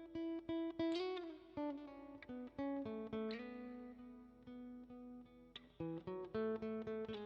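Guitar music: single plucked notes and small chords, each ringing and then fading, with a short bend in pitch about a second in.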